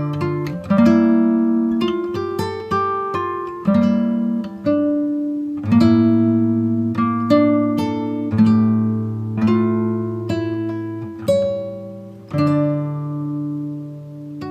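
Background music: acoustic guitar picking notes and strumming chords, each chord ringing out and fading before the next.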